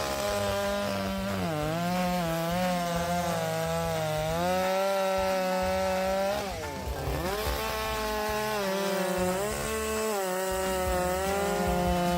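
Chainsaw running at high revs while cutting through a log. Its pitch drops briefly about a second and a half in and again around seven seconds in, then climbs back.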